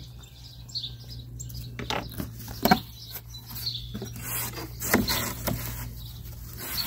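Cardboard shipping box being opened: scissors slitting the packing tape, then the stiff flaps pulled open with scraping, rustling and a few sharp knocks. Birds chirp in the background.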